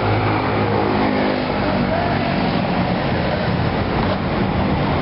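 Road traffic: motor vehicle engines running steadily close by, a constant low hum.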